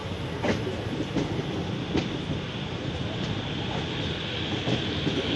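Passenger train coaches running on the track: a steady rumble with scattered sharp clicks of the wheels over the rails, heard from an open coach doorway.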